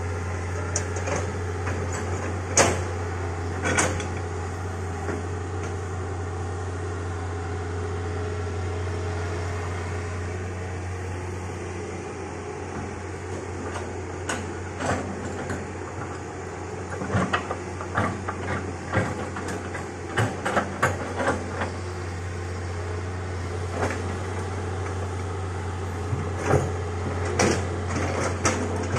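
Hitachi excavator's diesel engine running with a steady low drone while its bucket and tracks crash through dense brush, giving repeated sharp snaps and knocks of branches and woody undergrowth breaking. The snapping comes in busy clusters about halfway through and again near the end.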